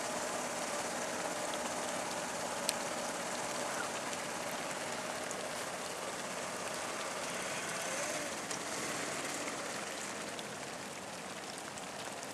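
Steady rain falling on wet ground, with a car engine idling under it. One sharp click about three seconds in.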